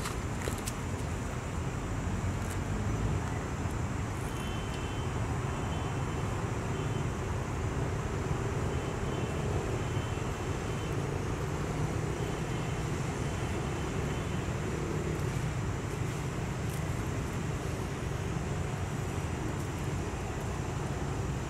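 Steady outdoor background rumble, with a thin high steady tone throughout and a few faint short chirps in the middle.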